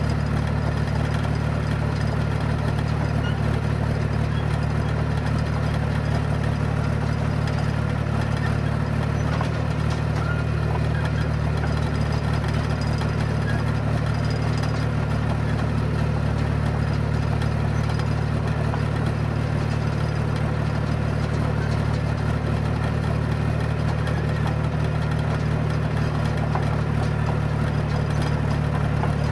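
John Deere bulldozer's diesel engine running steadily at an even pitch, heard close up from a phone mounted on the machine's headache rack.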